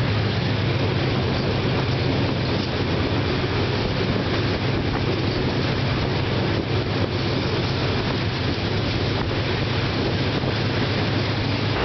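Diesel locomotive of a passenger train running under way: a steady low engine drone mixed with wheel-on-rail noise and wind on the microphone.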